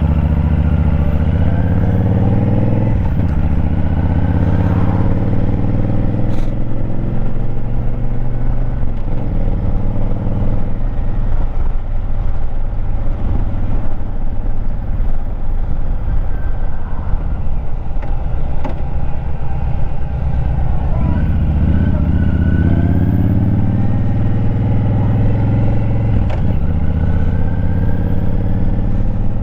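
Motorcycle engine running on the move, its pitch rising as it accelerates in a couple of stretches, with wind and road rumble on a helmet- or bike-mounted GoPro microphone.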